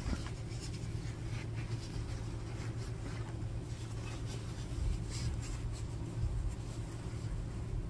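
Rustling of a piece of quilting fabric being unfolded and handled, heard as a series of soft, irregular brushing sounds over a steady low hum.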